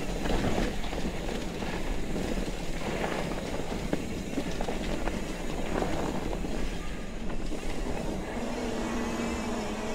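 Mountain bike riding over a dirt trail, heard from the bike-mounted camera: a steady rumble of tyres and wind on the microphone, with the bike rattling and clicking over bumps. Music starts to come in near the end.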